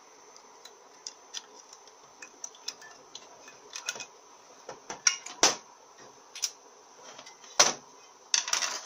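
Scattered small metallic clicks and taps of valve parts and a hand tool against an aluminium transmission valve body and metal tray. There are sharper knocks about five and a half and seven and a half seconds in, and a quick cluster of clicks near the end as the valve body is handled.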